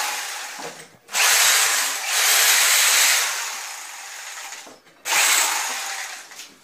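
Electric drill boring into ceramic wall tile in three runs, each starting abruptly and tailing off; the middle run is the longest.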